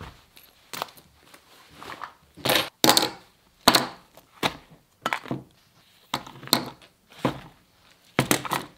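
Pocket gear set down piece by piece on a wooden tabletop: about a dozen irregular knocks and clinks from a metal chain, knives and a leather pouch, with a quick run of them near the end.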